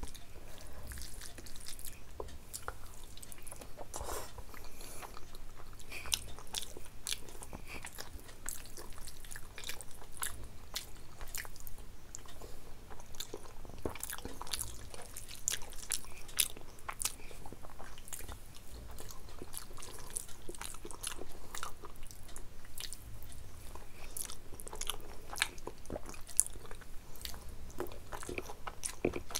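Close-miked chewing and biting of food, with many irregular short wet clicks and occasional crunches.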